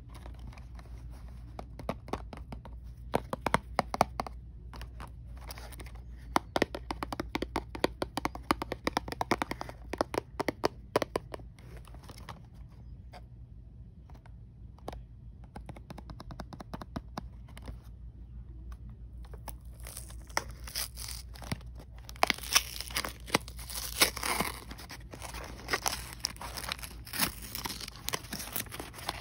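Hands handling a small cardboard blind box, with many quick sharp clicks and taps. From about twenty seconds in, the box's cardboard top is torn open, with louder ripping and crinkling.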